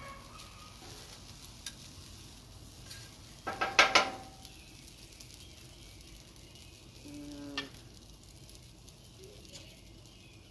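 Fried rice sizzling in oil on a hot flat-top griddle, with stirring. A brief, much louder sound rises over it about three and a half seconds in.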